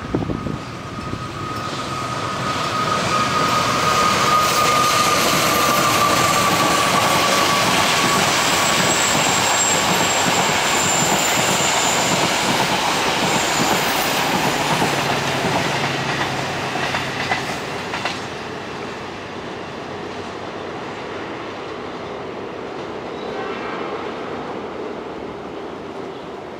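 A double-headed express train passes: two GE diesel-electric locomotives, a CC 206 (GE CM20EMP) and a CC 203 (GE U20C), followed by a long rake of coaches, with engines running and wheels on the rails. The sound builds over the first few seconds and stays loud while the coaches go by, with a high steady wheel squeal on the curve in the first several seconds. After about 18 seconds it drops as the train runs away.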